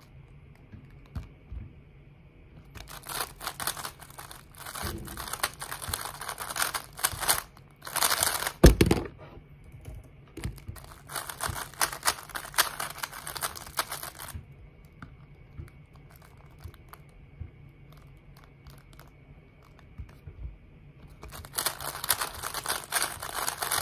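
A 3x3 speedcube being turned fast by hand: dense runs of plastic clicking and clacking from the turning layers, in bursts of a few seconds with quieter pauses between. A single thud about nine seconds in.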